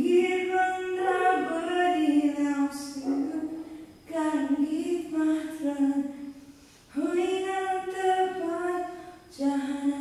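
A woman's voice singing slow, long-held notes with no accompaniment, in phrases of about three seconds with short breaks between them.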